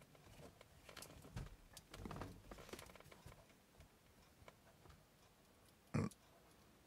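Hand crimping tool squeezing a terminal's barrel onto the bared copper strands of a cable: faint ticks and rustling as the jaws close, then one louder click about six seconds in.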